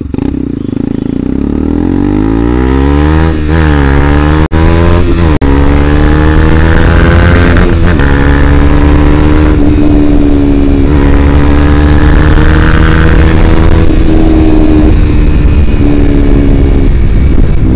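KTM Duke 200's single-cylinder engine running loud through an aftermarket Akrapovic full-system exhaust with the dB killer removed, ridden under acceleration. The note climbs over the first few seconds, dips and climbs again, then holds fairly steady at riding revs.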